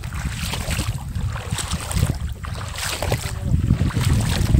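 Feet wading through knee-deep flood water, sloshing and splashing with each step about every half second, over wind rumbling on the microphone.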